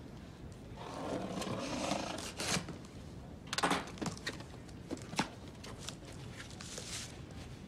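Cardboard box being opened by hand. About a second in there is a scraping tear lasting about a second and a half, then a few short knocks and rustles of cardboard and paper.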